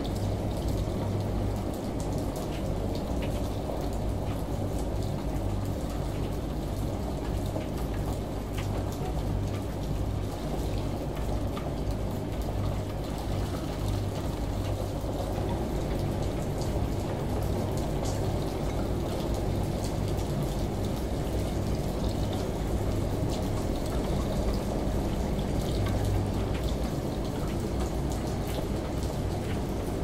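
Washing machine running with a steady low drone, layered with the hiss and patter of rain and running water, with many small scattered drip ticks.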